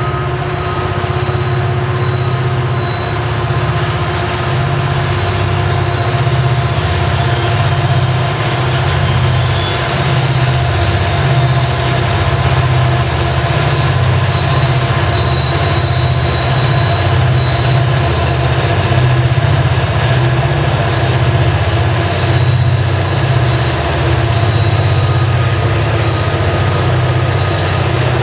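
Loaded coal train rolling past: a steady low rumble of steel wheels on rail with thin, steady wheel-squeal tones over it. Near the middle, a pair of mid-train diesel locomotives goes by.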